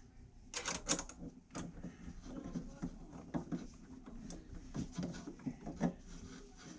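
Faint, irregular metallic clicks and taps of a 7/16 wrench working a bolt while the reducer holder is tightened onto the ice shuttle frame.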